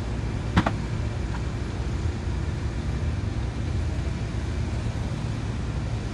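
Steady low rumble of boat engines running, with one sharp crack about half a second in and a fainter tick a second later.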